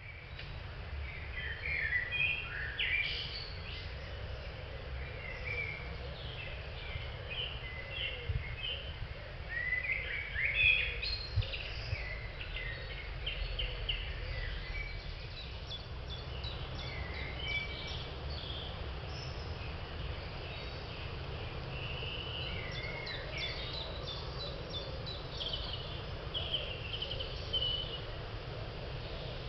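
Several songbirds singing and chirping in woodland, overlapping phrases coming and going throughout, over a steady low rumble.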